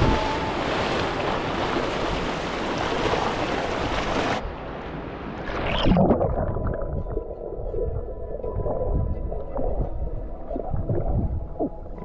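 Water splashing and churning at the surface. About four seconds in, the sound turns suddenly muffled as the microphone goes under water: a rush of bubbles, then low underwater gurgling and knocks from a swimmer moving.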